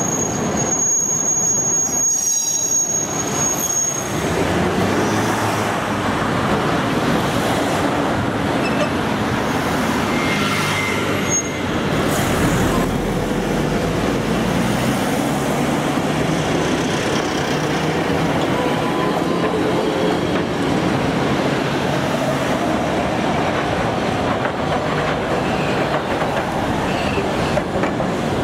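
Iyo Railway Type 50 streetcar rolling along street track with a steady rumble, its wheels giving a thin, high squeal in the first couple of seconds.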